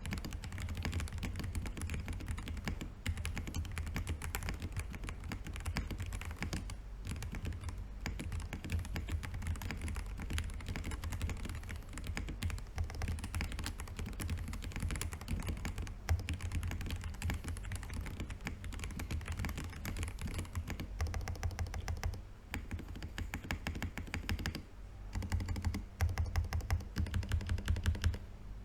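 Continuous fast typing on a Zoom TKL mechanical keyboard with stock Najakeys TU switches on a brass plate. The keystrokes pause briefly twice in the later part, then come louder and more spaced near the end.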